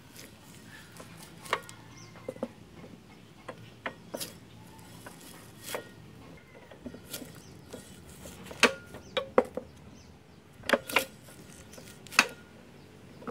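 Irregular sharp clicks and knocks from a hand-cranked roller press as a piece of motorcycle tire is worked between its rollers. The louder knocks come in the second half, a few close together.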